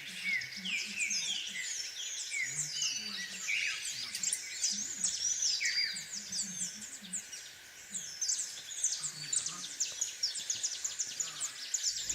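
Many small birds chirping at once: a dense, overlapping chorus of short rising and falling calls.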